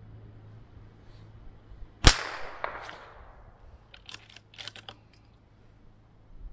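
A single shot from a Bergara B14 bolt-action rifle about two seconds in, echoing off for about a second. About two seconds after the shot comes a quick series of sharp metallic clicks as the bolt is worked to chamber the next round.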